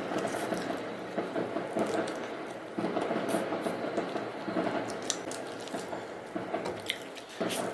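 A person eating: wet chewing and mouth sounds with irregular small smacks and clicks, which rise and fall in loudness.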